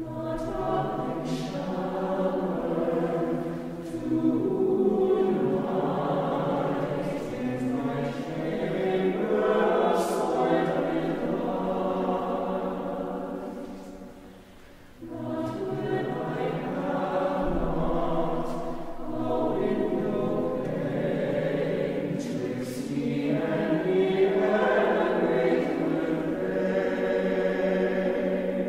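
Mixed-voice chamber choir singing a cappella in a church, sustained chords with sharp 's' consonants. The sound dies down between phrases about halfway through, then the choir comes back in.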